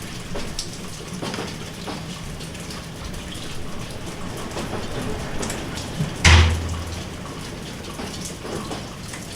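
Steady rain falling, with many separate drops ticking close by on a surface. About six seconds in comes one louder, deeper thump, like a heavy drop striking near the microphone.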